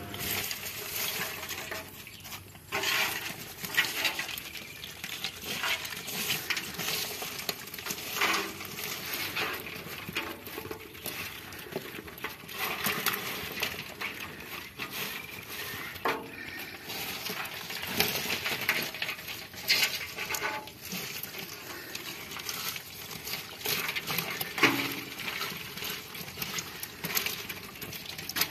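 Wet dead leaves and twigs rustling and crackling as they are sorted by hand, with many small clicks and knocks against a metal basin scattered throughout.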